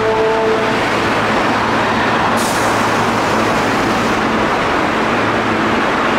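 Midosuji Line subway train moving through the platform with a steady rumble of wheels and motors. A hiss of released compressed air comes in suddenly about two and a half seconds in and stops about two seconds later.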